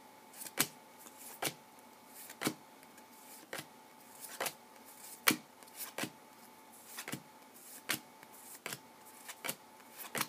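2014 Bowman Chrome football cards being flipped one at a time through a hand-held stack. Each card slides off the front and is tucked behind with a short, light snap, about once a second.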